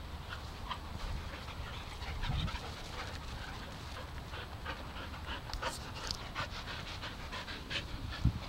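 Dog panting close by, in short, uneven breaths.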